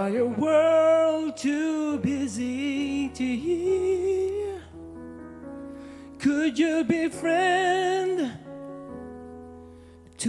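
A male vocalist singing a slow worship song with vibrato over sustained keyboard chords. The voice sings three phrases, pauses briefly near the middle while the chords hold, then sings one more phrase.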